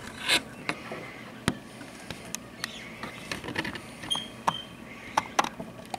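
A flock of plumed whistling ducks giving short, shrill whistles and squeaky twittering calls, scattered through with sharp clicks. A loud sudden knock comes about a third of a second in.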